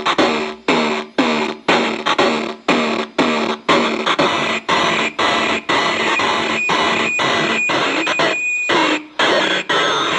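Glitchy noise output of a circuit-bent Korg DDD-1 drum machine patched with a digital effect: a hit repeating about twice a second, each one dropping in pitch, blurring into a steadier noisy drone after about four seconds, with a brief dropout near the end.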